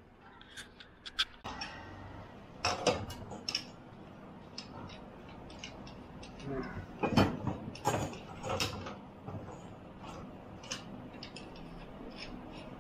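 Metal hand tools and parts clinking and knocking on a steel workbench during work on a JCB hydraulic cylinder, in irregular taps with louder knocks about three seconds in and again around seven to nine seconds in.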